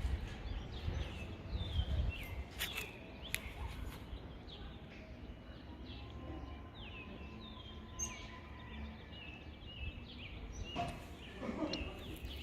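Birds chirping, many short falling calls repeating over a low outdoor rumble, with a few sharp clicks.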